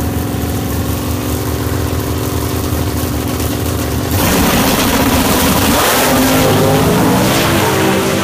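Dodge Challenger Drag Pak drag car's V8 running steadily at low revs while staging. About four seconds in, the cars launch and run at full throttle, suddenly much louder and rougher, with the revs rising and falling.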